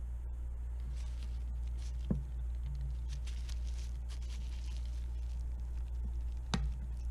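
Two sharp knocks about four and a half seconds apart, the second the louder: a hammer tapping a pin punch to drive a pin out of a wooden musket stock. Under them runs a steady low hum, with faint rustling from hands handling the stock.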